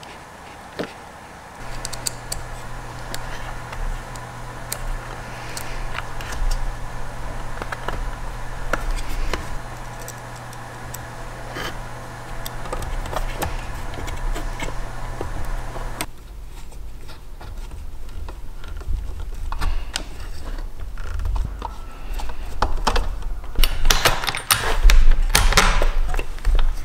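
Small clicks, taps and rattles of hand tools and wiring parts being handled, over a steady low hum that stops abruptly about halfway through. Near the end come louder knocks and handling as wires are pushed into place inside the dehydrator's plastic base.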